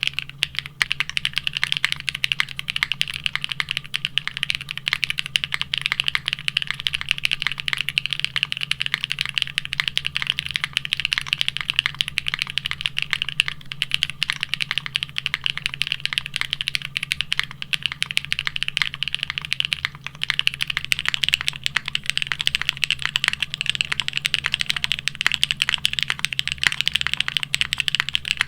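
Continuous fast typing on a plateless, foamless Neo65 mechanical keyboard fitted with GMK ABS keycaps, dense overlapping clacks. About two-thirds of the way through the keycaps change to a DCS-profile ABS set, and the typing continues the same way.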